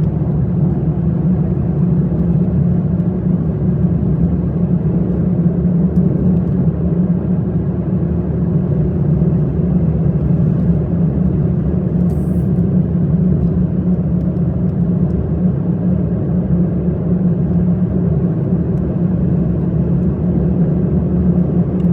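Car engine and road noise heard from inside the cabin while driving: a steady low hum with no change in pitch.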